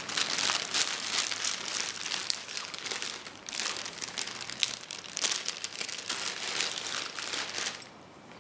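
Packaging being handled and crinkling, dense rustling and crackling with many small sharp peaks. It stops about 8 seconds in.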